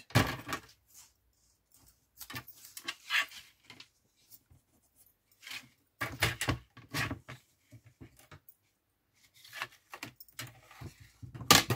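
Card stock and crafting tools being handled on a work table: short bursts of rustling, scraping and light clattering with quiet gaps between them.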